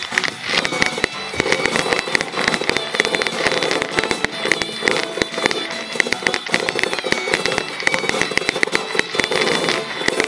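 Aerial fireworks crackling and popping in a dense, continuous rattle, with music playing alongside.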